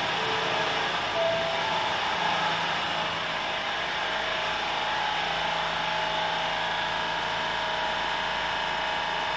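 Busan Metro Line 1 subway train pulling out of an underground station into the tunnel. Its motor whine rises slightly in pitch and then holds, over a steady rushing noise.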